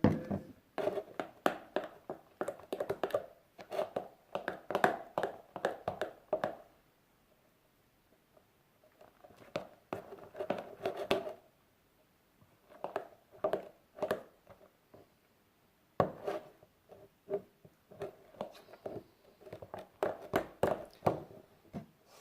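Slime being mixed by hand in a bowl: bursts of quick, irregular clicks and taps, broken by short pauses.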